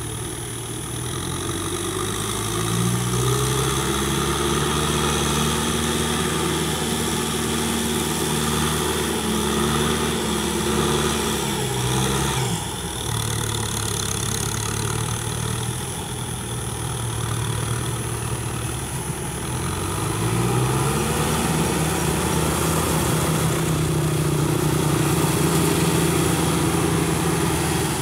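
Kubota M6040 tractor's diesel engine working under load while it drives a Maschio rotary tiller. The engine pitch climbs about two seconds in, drops around twelve seconds, then climbs again around twenty-one seconds.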